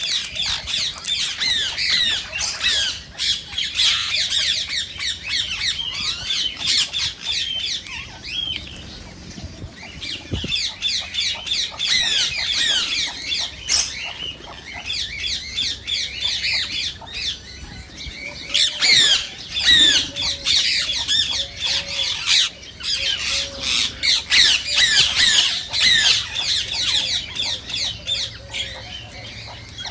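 Indian ringneck parakeets giving a dense run of rapid, high-pitched squawks and chattering calls, the calls sliding quickly in pitch, with brief lulls about a third of the way in and again about three quarters of the way in.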